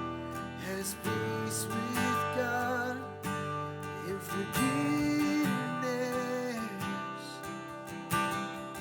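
Acoustic guitar strumming chords in a slow worship song, between sung lines.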